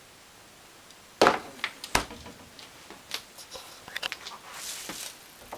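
A refrigerator door swung shut with a loud thump about a second in, a second knock just after, then light clicks and rustling of handled packages and objects.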